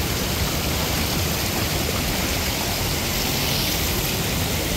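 Steady rush of water flowing over and between the concrete blocks of a weir.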